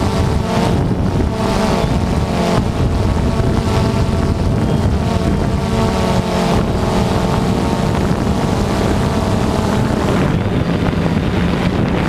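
DJI Phantom 2 quadcopter's electric motors and propellers whining, heard from the camera mounted on it, several tones together that shift up and down in pitch as it holds and manoeuvres. Heavy wind buffets the microphone underneath.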